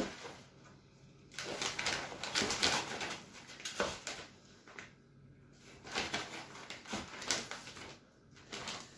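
Hemp seed bait being scooped out of a bowl and poured into a plastic bag, the grains hissing and the bag rustling in several irregular bursts.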